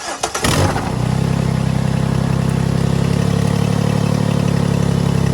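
Jeep engine running at a steady idle, settling after an unsteady first second.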